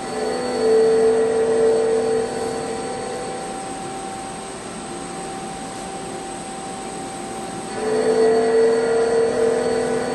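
CNC machine running with a steady mechanical hum. Twice, just after the start and again near the end, a louder pitched whine comes in and holds for about three seconds before falling away.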